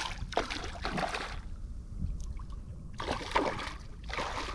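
Water splashing and sloshing beside a kayak in two surges, one at the start and one about three seconds in, over a steady low wind rumble on the microphone.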